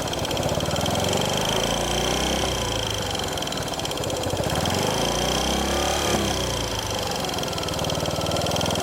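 Yamaha SR400's single-cylinder air-cooled four-stroke engine idling with an unpleasant noise from the cylinder head, a noise that grows louder as the engine warms up and that no adjustment has cured.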